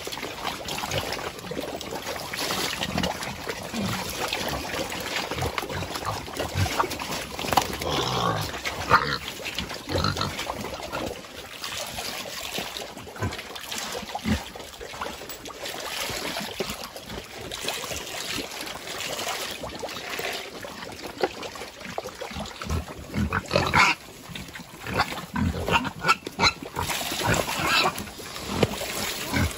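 Crossbreed native pigs eating at their trough: irregular grunts mixed with wet chomping and crunching noises.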